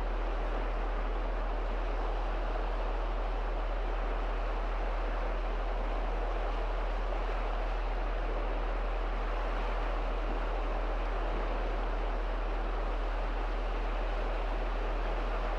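Small Gulf of Riga waves lapping and breaking along the shore in a steady, even wash, with a constant low hum underneath.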